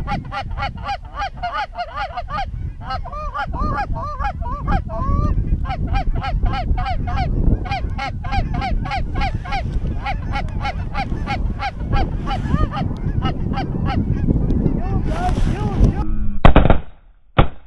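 Rapid Canada goose calling: short honks and clucks one after another, heard over wind rumble on the microphone. A couple of loud sudden knocks come near the end.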